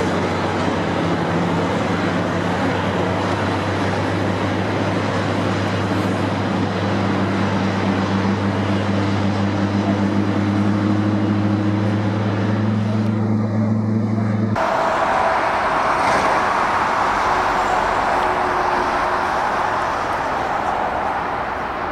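Jet noise from a Boeing 747-8's four GEnx engines at takeoff power, with a steady low hum under it. Partway through it changes abruptly to a broad rushing jet roar as the aircraft climbs away.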